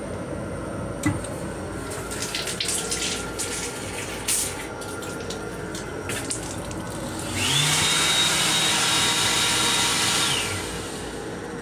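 Sensor faucet in an M7 railcar lavatory trickling and splashing water into the sink. About seven seconds in, the sensor hand dryer starts blowing with a steady high whine and stops about three seconds later.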